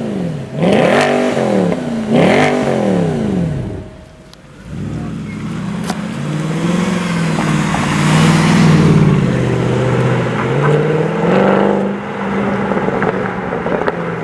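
Mercedes-Benz C63 AMG 6.2-litre V8 revved hard while standing: two sharp blips, each rising and falling in pitch within about a second. After a break about four seconds in, a C63 AMG's V8 runs at low revs with a slowly wavering throttle as the car rolls by, loudest around the middle.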